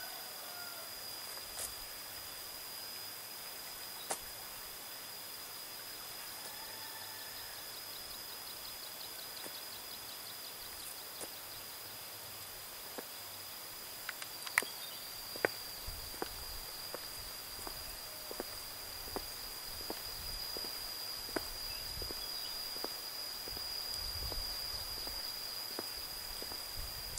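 Steady high-pitched insect buzz throughout, with a few faint bird chirps near the start. From about halfway, footsteps on a concrete path come in, roughly one or two steps a second.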